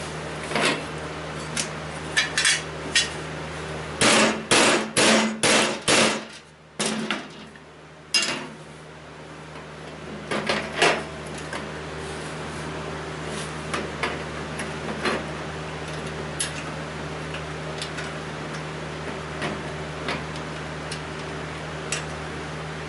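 Hammering during go-kart assembly: a quick run of about six strikes about four seconds in, with scattered knocks and clinks of tools before and after. A steady low hum runs underneath.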